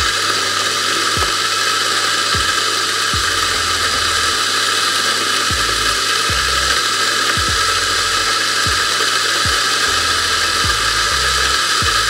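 Mazzer Mini Electronic espresso grinder's motor and 64 mm flat burrs grinding a 20 g espresso dose: a loud, steady grinding whir at about 88 to 90 decibels.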